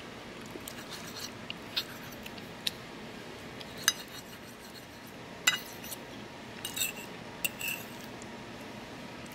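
Metal fork clinking and scraping against a china plate while pancake is cut and picked up: a string of sharp, irregular clinks, several coming close together near the end.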